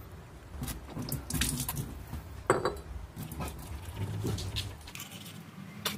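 Toothbrush scrubbing teeth, an irregular scratchy rustle, with one short vocal sound from the brusher about two and a half seconds in.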